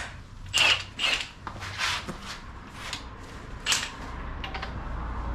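A few separate knocks and clatters of a tool being handled. About four seconds in, a power tool starts running steadily on a bolt at its third setting, trying to turn a fastener that had stopped turning at setting two.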